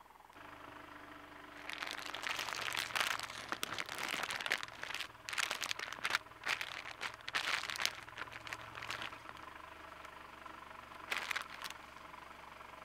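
Plastic candy bag crinkling as it is handled and shaken to empty the pieces out, in crackly bursts from about two seconds in to about nine seconds, and once more briefly near the end. A low steady hum runs underneath.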